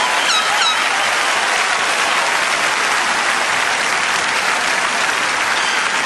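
Large convention audience applauding steadily after a line of a speech, with two short whistles just after the applause begins.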